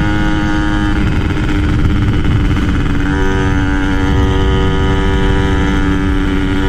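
Yamaha F1ZR's 120cc-spec two-stroke engine running at high, steady revs under way, its note holding level, with wind rushing over the microphone.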